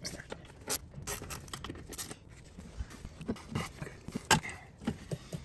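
Scattered clicks, knocks and scrapes of a gloved hand working parts into place around a throttle body in an engine bay, with the sharpest knock about four seconds in.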